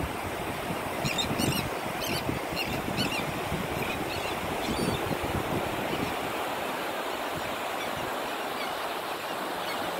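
Steady wash of surf on the shore, with a few faint short bird calls in the first half.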